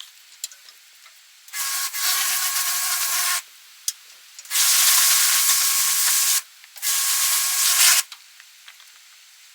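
Pressure washer spraying in three bursts of about one to two seconds each: a loud hiss of water with the pump's steady whine under it, both stopping together each time the trigger is released.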